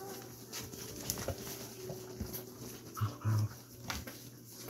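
Puppies play-fighting, with soft whimpering and a short louder vocal sound about three seconds in, among scattered light clicks and scuffs.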